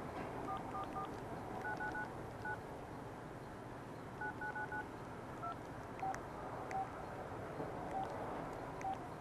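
Keypad tones of a Casio G'zOne Ravine flip phone as text is typed by multi-tap: short beeps, some keys pressed three or four times in quick runs, then a few spaced single lower beeps in the second half, with faint key clicks.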